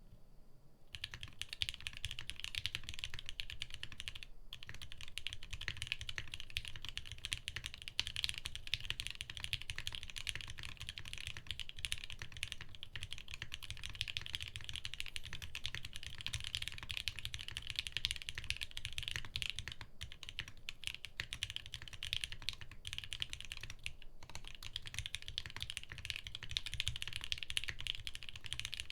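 Continuous fast typing on a custom TGR Jane 1.5 mechanical keyboard with lubed and filmed Gateron Giant V3 switches on a POM half plate, CRP Tulip keycaps and no case dampening: a dense run of keystroke clacks, each with a low thock under it. The typing starts about a second in and pauses briefly twice, around four seconds in and near the end.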